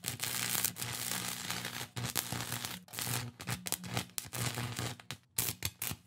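Electrical crackle and buzz sound effect, a hissing static over a low hum that keeps cutting in and out irregularly, like glowing tubes flickering on.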